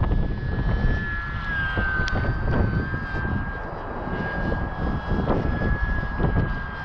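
Electric motor and propeller of an E-flite UMX Pitts S-1S ultra-micro RC biplane whining at a steady high pitch in flight, under heavy wind buffeting on the microphone.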